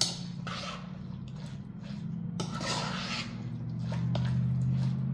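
A spoon stirring mayonnaise through cooked bow-tie pasta in a pot: a knock of the spoon against the pot at the start, then soft wet squishing and scraping. A low steady hum runs underneath and grows a little louder near the end.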